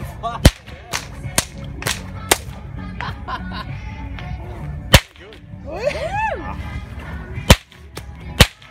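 A whip being cracked by hand: about eight sharp cracks at irregular intervals, a quick run of five in the first two and a half seconds, then single cracks about five, seven and a half and eight and a half seconds in.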